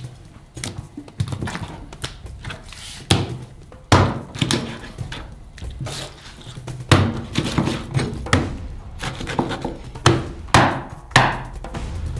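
Knife chopping through a sturgeon carcass to cut it into slices: a series of irregularly spaced strikes, about a dozen.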